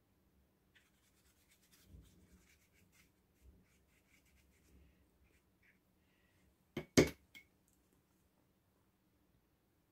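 Soft, scratchy rubbing of a round watercolour brush laying a wash across cold-press watercolour paper. About seven seconds in, two or three sharp knocks close together are the loudest sound.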